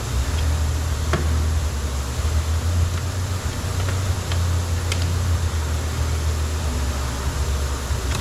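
Steady low hum with a hiss over it, like a fan, air conditioner or idling vehicle, with a few light clicks scattered through it.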